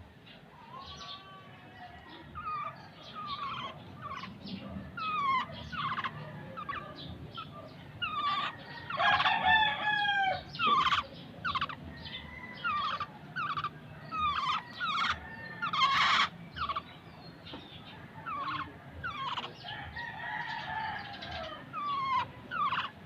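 Black-naped oriole calling over and over in short, falling notes. A rooster crows twice, a long falling crow about nine seconds in and a fainter one near the end.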